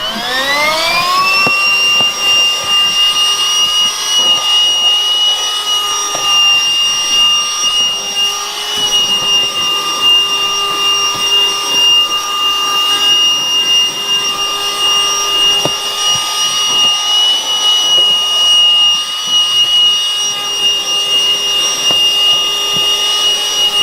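Onshowy cordless handheld vacuum cleaner switched on, its motor spinning up to a steady high whine within about a second and a half, then running at a steady speed with slight shifts in pitch.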